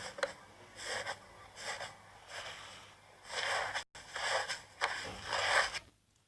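Slime being squeezed and worked by hand: a series of about eight short, airy squishes, some drawn out, with a brief break near the middle.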